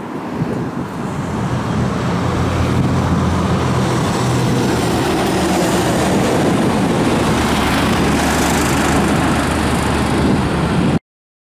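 Airbus A321neo's CFM LEAP-1A turbofans at take-off thrust as the airliner lifts off and climbs away: loud, steady jet noise with a low hum beneath it, swelling over the first two seconds and then holding. It cuts off suddenly near the end.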